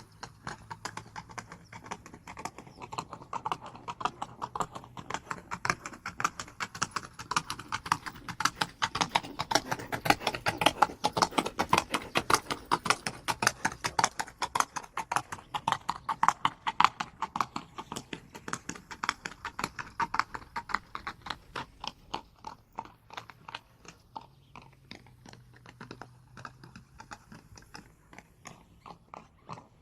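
Horse hooves galloping in a fast, dense run of strikes, growing louder toward the middle and fading away near the end, as if passing by.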